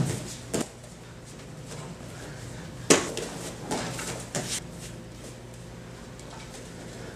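Bo staff form worked on training mats: a handful of quick thumps and swishes from the staff and bare feet, the sharpest about three seconds in, with a cluster more a second later, over a low steady hum.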